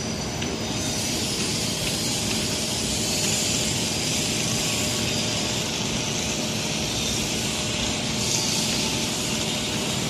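Argo Parahyangan passenger coaches rolling steadily past: a continuous rumble and hiss of steel wheels on the rails.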